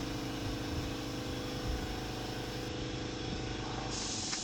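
Steady mechanical hum made of several steady tones, with a hiss joining in near the end.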